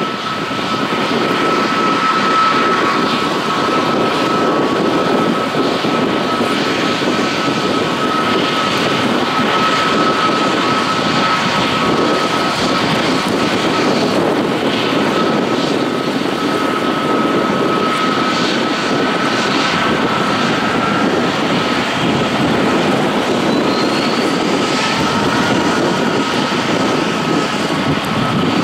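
Airbus A321neo's Pratt & Whitney PW1100G geared turbofan engines running at taxi power as the airliner taxis past: a steady jet rumble with a steady whine held at one pitch.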